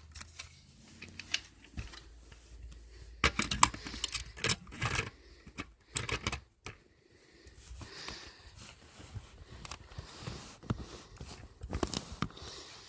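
Scattered clicks and rattles of a plastic smoke detector and its sounder base being handled, in a few irregular clusters.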